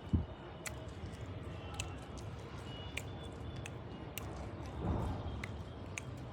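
Someone chewing raw amla (Indian gooseberry), with scattered sharp crunching clicks at irregular intervals.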